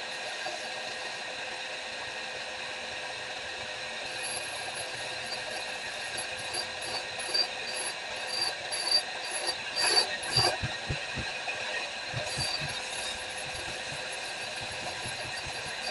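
An electric grinder running steadily, with steel pressed against it in irregular passes from about four seconds in to about thirteen seconds, loudest around ten seconds, rounding the tip of a blacksmith's ball punch.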